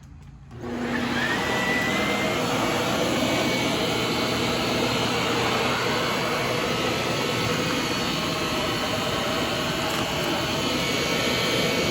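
Shark ZU632 Powered Lift-Away upright vacuum cleaner switched on about half a second in and running steadily, with a brief rising whine just after it starts.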